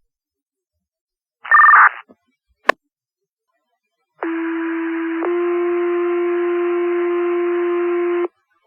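Fire dispatch radio channel with squelch clicks and a short two-tone beep, then two-tone sequential pager alert tones: a steady tone of about a second that changes to a second steady tone held for about three seconds, the signal that sets off the station's pagers before a page is read.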